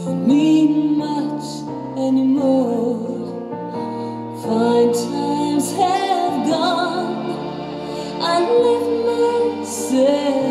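Slow song: a woman sings long, wavering notes over sustained instrumental chords.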